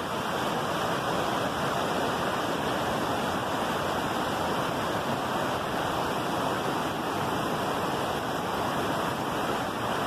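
River water rushing over rocky rapids: a steady, even whitewater noise with a waterfall cascading just upstream.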